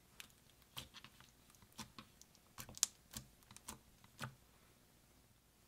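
Pink glitter slime being pressed and folded by fingers, giving about a dozen irregular sharp clicks and pops that stop a little after four seconds in.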